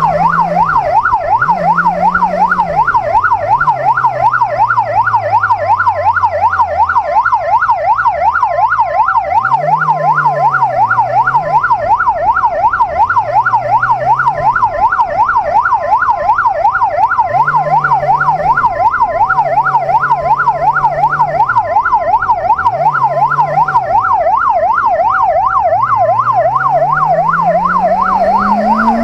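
A fast yelp siren sweeping rapidly up and down, with a second, two-tone hi-lo siren alternating about once a second beneath it. Under both, a Benelli QJ 600cc inline-four motorcycle engine rises and falls in pitch several times and climbs steadily near the end.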